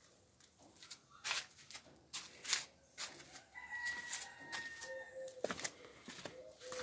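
A rooster crowing faintly once, one long call of under two seconds about halfway through. Scattered clicks and taps sound around it.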